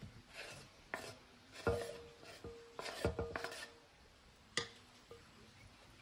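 Wooden cutting board scraped and knocked against the rim of a glass mixing bowl as shredded cooked chicken is pushed off it. There are a handful of sharp knocks with scraping between them, and several knocks are followed by a short ring.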